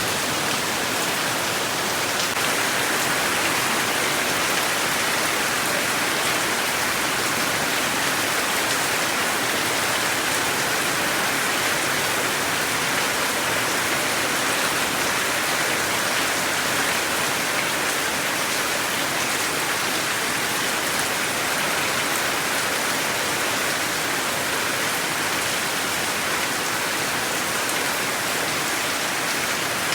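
Steady, heavy rain, falling and spattering on surfaces.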